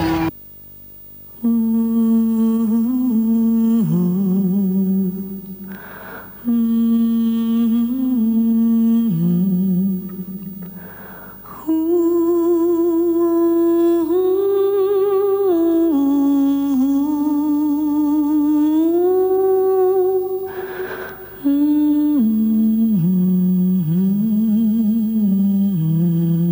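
A solo voice humming a slow, wordless melody, holding long notes with a wavering pitch, in several phrases separated by short breaths.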